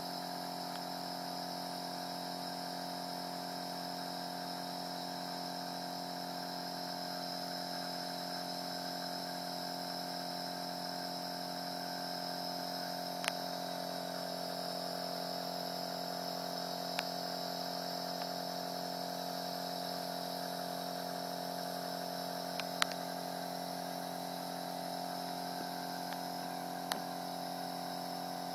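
Pari TurboBoy S nebulizer compressor running with a steady hum and a hiss of air through the nebulizer as it makes the mist. A few short, sharp clicks stand out over it.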